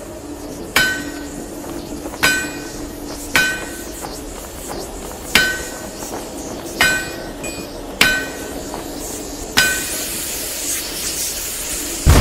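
Metal struck by a hammer seven times, unevenly, about every one and a half seconds, each blow ringing on with a clear high tone. After about ten seconds a hiss builds, and loud music with a boom cuts in right at the end.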